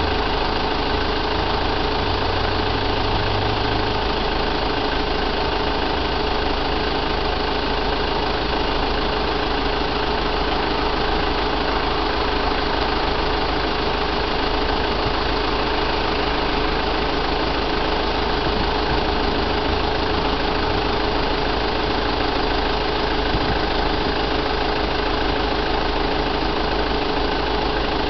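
A vehicle engine idling steadily under a constant hiss, with a low hum that fades about four seconds in.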